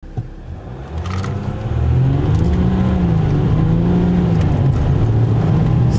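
Ram 1500 EcoDiesel's 3.0-litre V6 turbodiesel heard from inside the cab as the truck accelerates, getting louder over the first two seconds, its pitch rising and falling as it pulls.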